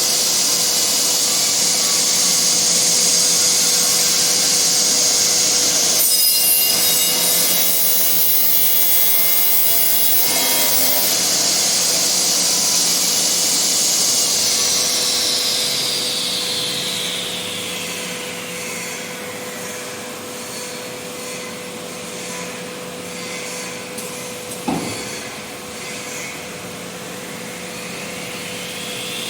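Nesting CNC router cutting wood-based panel: loud, steady cutting noise over a high spindle whine. About halfway through, the whine falls away as the spindle winds down, a single knock follows, and the whine rises again near the end as the spindle spins back up.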